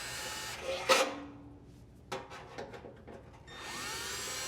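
Drill driver running in reverse to back out panhead screws, twice: a steady motor whine lasting a second or so each time, with a sharp click about a second in and a few lighter clicks between the runs.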